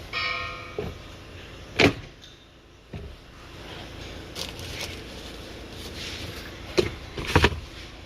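Plastic cabin-filter cover and glove-box parts being refitted in the car: sharp clicks and knocks, one loud snap about two seconds in and a cluster of knocks near the end. A short ringing tone sounds at the very start.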